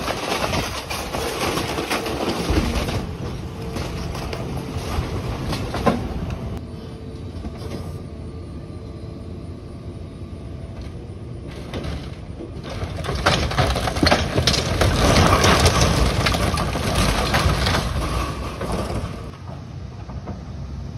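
An excavator demolishing a small brick building: its diesel engine runs under the crunching, cracking and scraping of timber, roofing and brick debris. The crunching is heaviest in the second half, then falls off near the end.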